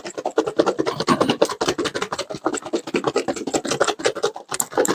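Raw chicken wings coated in oil, cornstarch and seasoning being shaken hard in a closed container, a fast steady run of rattling, scraping strokes.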